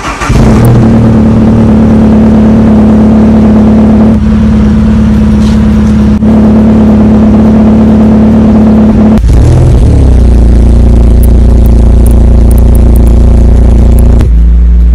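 Alfa Romeo 155 cold start at the exhaust: the engine catches about half a second in and runs at a loud, steady fast idle. After a cut about nine seconds in, a deeper-sounding Alfa Romeo engine idles with a brief rise in pitch, and near the end another Alfa Romeo saloon's idle follows.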